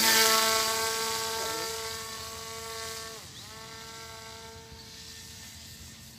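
Brushless electric motor (2212, 1000 kV) spinning a 10x4 propeller at high throttle on a hand-launched foam RC plane: a steady whine that grows fainter as the plane flies away. About three seconds in, the pitch drops briefly and then picks up again.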